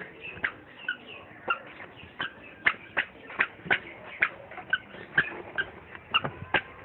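A toddler's squeaky shoes squeaking with each small step on concrete, about two to three short chirps a second in an even walking rhythm.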